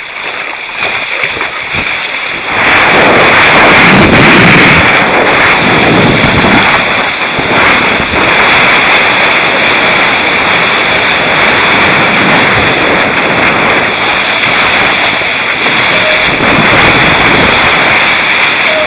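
Rushing water and wind buffeting the microphone as a surf craft rides a breaking wave. The noise jumps up sharply about two and a half seconds in and stays loud.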